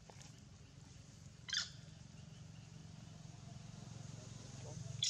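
Two short, high-pitched animal squeaks, one about a second and a half in and another at the very end, over a steady low hum.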